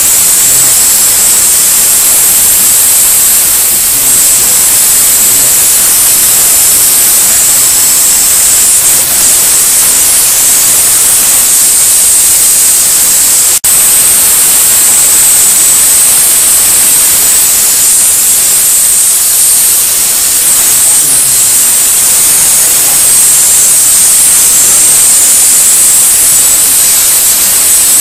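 Handheld nozzle of an Enrich Fogger bed-bug machine jetting vapor: a loud, steady hiss, strongest in the high treble. It cuts out for an instant about halfway through.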